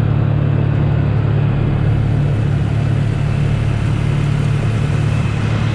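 A motor vehicle's engine running steadily: a constant low drone with an even hiss over it.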